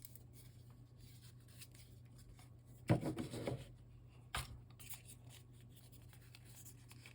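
Quiet handling of smartphone box packaging and accessories: a brief rustle about three seconds in and a sharp tap a second later, with faint small clicks, over a low steady hum.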